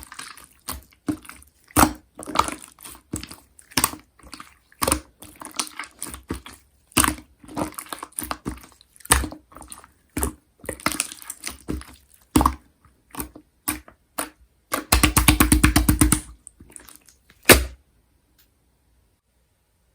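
Clear slime being squished and pressed by hand, making irregular wet, sticky clicks and pops. About fifteen seconds in comes a fast run of clicks lasting about a second and a half, and the sounds stop shortly before the end.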